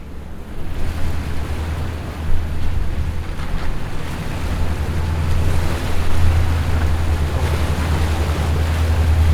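Motorboat underway on open ocean: a steady low engine drone under a rush of wind and water, growing slowly louder through the stretch.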